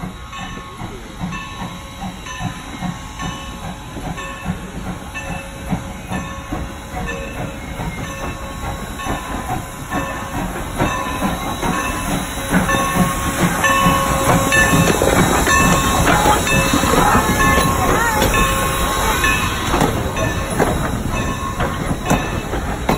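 Norfolk and Western No. 475, a 4-8-0 steam locomotive, pulling into the station and running past with its train, with an even repeating beat. It grows louder about halfway through as it comes alongside.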